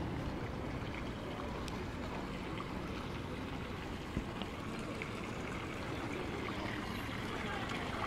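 Fountain water splashing and trickling steadily at the base of the column.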